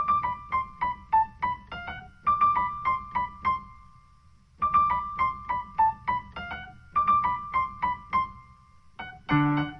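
Background music: a light keyboard melody of short, separate notes, repeating the same short phrase. A fuller accompaniment of chords comes in near the end.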